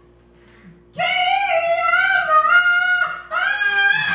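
Music: after a quiet first second with a faint steady drone, a high, wavering melodic line comes in about a second in. It plays in two phrases with a short break between.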